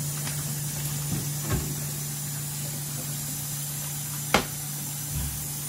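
Onions sizzling as they fry in a frying pan, a steady hiss over a low steady hum. Two sharp knocks on the pan, a small one about a second and a half in and a louder one near the end.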